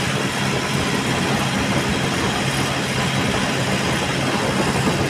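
Farm tractor engine running steadily while driving along a road, heard from the tractor's seat.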